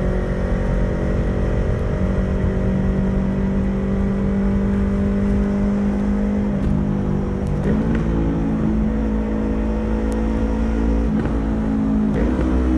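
Yamaha YZF-R3's parallel-twin engine running at fairly steady revs, its pitch shifting slightly a few times.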